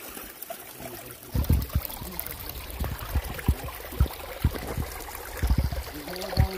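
Creek water running through a gold sluice box over its riffles and matting. From about a second and a half in there are irregular low thuds as the camera is moved close over the water.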